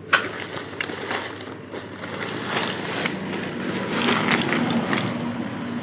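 Rustling and crinkling of a woven sack as parts are pulled out of it, with scattered sharp clicks and knocks.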